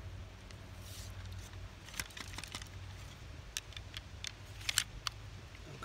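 Ramrod working wadding down the barrel of a muzzle-loading wheel lock pistol: a scatter of light clicks and taps, most of them between about two and five seconds in.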